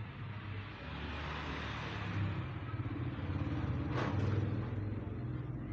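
A motor vehicle's low engine rumble with a rush of noise that swells and then fades. A single sharp click comes about four seconds in.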